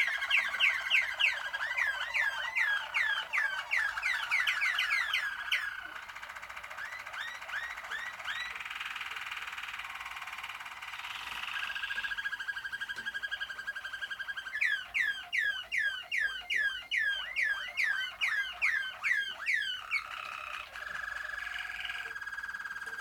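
Malinois (Waterslager) song canaries singing. Runs of quick falling whistled notes, several a second, alternate with rolling trills held steady on one pitch in the middle and near the end.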